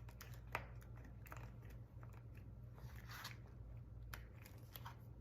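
Faint scattered clicks and rustles of small objects being handled, over a steady low hum.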